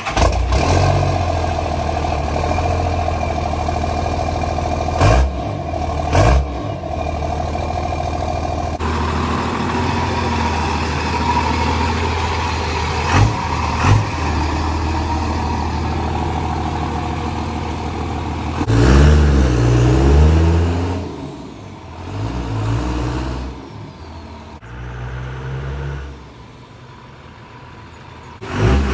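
Second-gen Dodge Ram's 24-valve Cummins inline-six turbodiesel running just after being started: a steady idle with several short throttle blips, then revving up about two-thirds of the way through and getting quieter near the end as the truck moves off.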